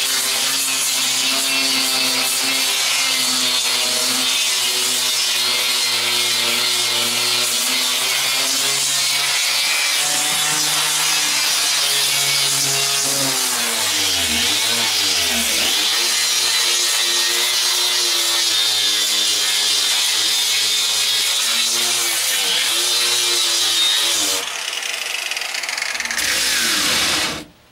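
Electric grinder grinding the fiberglass hull, putting a fresh surface on it for bonding. It runs steadily with a hissing of the disc on the fiberglass. Its pitch sags and recovers about halfway through, and near the end it is switched off and winds down.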